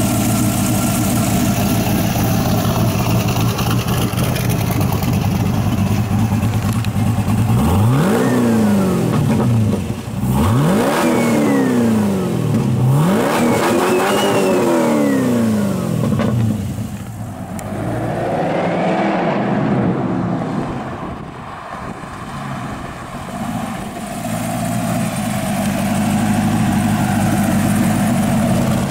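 GM Performance Parts LS3 376/525 crate V8 with stainless shorty headers and side-exit exhaust idling. About eight seconds in it is revved three times in a row, each rev rising and falling back. A softer blip follows a few seconds later before it settles back to idle.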